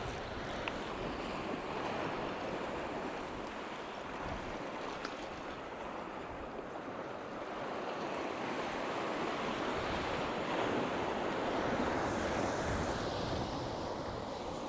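Sea waves washing and breaking against shore rocks, a steady rush that swells louder about ten seconds in, with wind buffeting the microphone.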